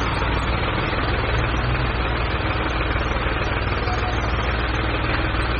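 Construction vehicle's engine idling steadily, with a low, even throb.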